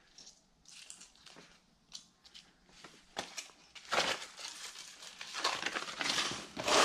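Paper mailing envelope being handled and opened, crinkling and rustling in short bursts that grow fuller and louder in the second half.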